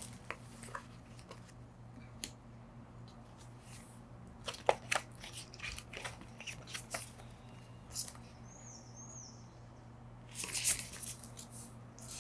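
Sporadic soft rustles and light taps of paper and plastic packaging being handled, with a longer rustling spell near the end; a steady low hum runs underneath.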